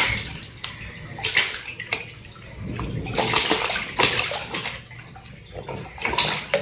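A baby slapping and splashing bath water in a plastic bucket with its hands: a run of irregular splashes and sloshing.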